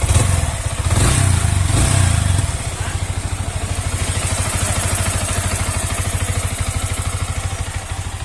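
Yamaha R15 V3's single-cylinder engine blipped a few times in the first couple of seconds, then settling into a steady idle. A slight 'chik' tick from the top end is still there after the rocker arm replacement.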